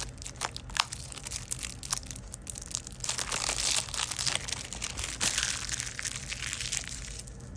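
Plastic wrapping on a boxed card deck being crinkled and pulled off by hand: a few sharp crackles, then steady crinkling from about three seconds in until near the end.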